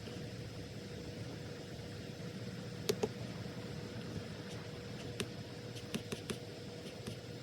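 Steady low room hum with a faint steady tone, broken by a handful of light, sharp clicks and taps at a desk: two close together about three seconds in, then five more between about five and seven seconds.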